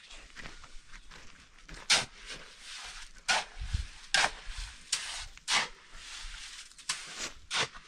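Steel spade scooping cement mortar out of a metal wheelbarrow, giving about seven short, sharp scrapes roughly a second apart.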